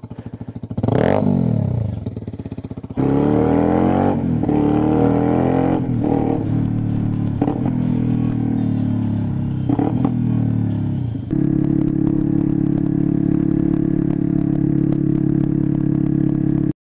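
Sinnis Hoodlum 125cc motorcycle engine idling and revved once, then pulling away and accelerating through the gears with a short dip at each change, and settling near the end into a steady, even note at low revs in fifth gear at about 30 mph.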